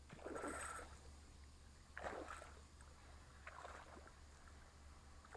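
Jitterbug topwater lure gurgling and splashing faintly on the pond surface as it is reeled in, in three short bursts.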